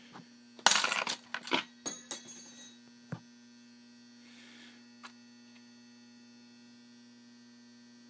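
A short clatter of small metal lock parts and tools clinking on the workbench in the first few seconds, one clink ringing briefly, then a couple of single ticks. A steady electrical hum runs underneath.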